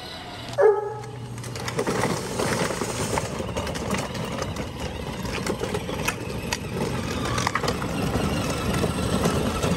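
A short honk from a child's ride-on toy jeep about half a second in, then its hard plastic wheels rolling over rough asphalt: a steady gritty crunching with many small clicks.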